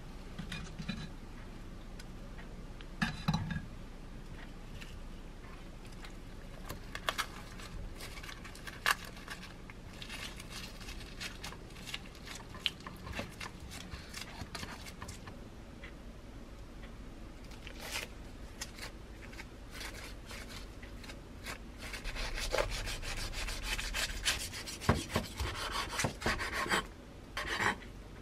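Kimbap being rolled by hand on a wooden cutting board: the dry laver sheet rustles and rubs under the hands, with occasional light knocks. In the last several seconds it gets louder and busier, with short strokes of a kitchen knife slicing the roll against the wooden board.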